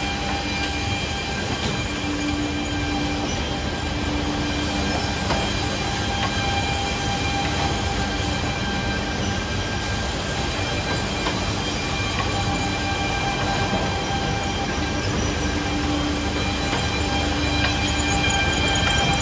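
Automatic edge banding machine running while an MDF panel is fed through it: a steady, loud mechanical drone with several held tones and a lower hum that comes and goes a few times.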